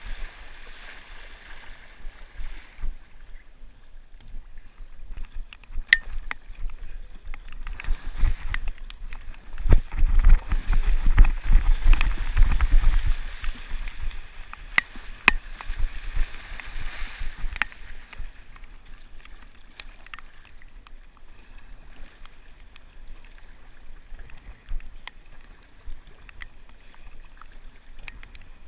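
Choppy water sloshing and splashing against a sea kayak's hull as it is paddled through small waves, with scattered sharp ticks and a louder, rumbling stretch of splashing near the middle.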